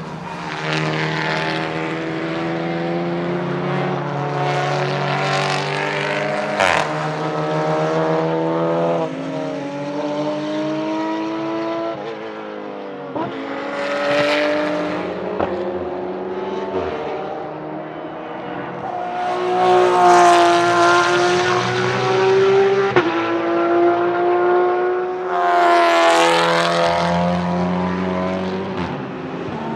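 Porsche 991.2 GT3 R race cars' 4.0-litre naturally aspirated flat-six engines at full throttle on track. The pitch climbs through each gear and drops suddenly at the upshifts, with louder passes about two-thirds of the way through and again near the end.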